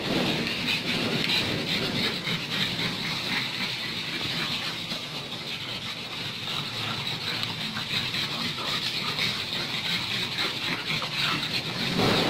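A pack of pugs snuffling and grunting as they jostle together, over a steady hiss.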